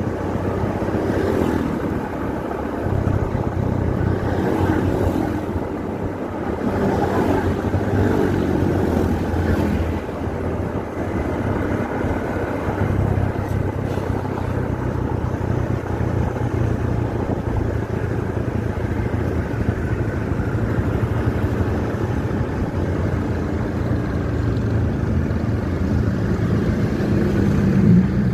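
Motorcycle engine running at road speed with wind noise on the microphone; the engine note rises near the end as it speeds up.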